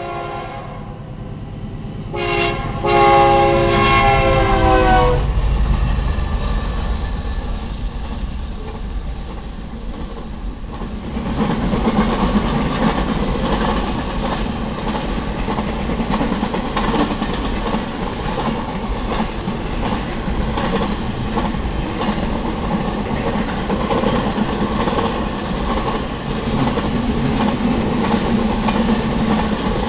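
Air horn of a GE C44-9W diesel locomotive sounding its crossing warning: one note-chord blast tails off at the start, and a second long blast begins about two seconds in and holds for about three seconds, with the locomotives' deep engine rumble as they pass. After that a double-stack container train rolls by, a steady rumble of railcars with faint rhythmic wheel clicks.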